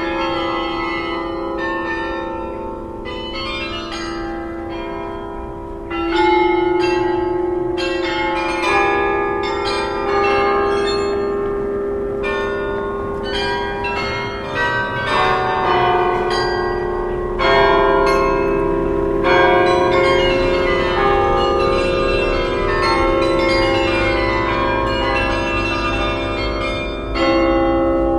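Church tower bells ringing: many bells of different pitches struck in quick, irregular succession, their tones overlapping and humming on, with a few louder strikes standing out.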